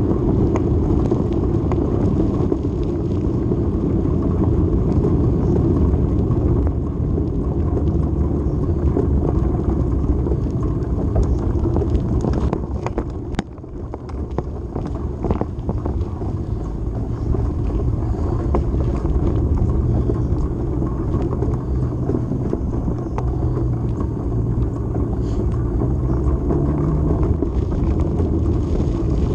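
Motorcycle engine running under way, with a steady low rumble of engine and wind noise. The engine note shifts in pitch and dips briefly about halfway through, then rises near the end.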